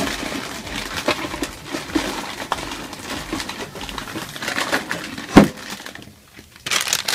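A hand rummaging through a bucket of plastic-wrapped blind bags and capsules: packaging crinkling and rattling, with one sharp knock about five seconds in.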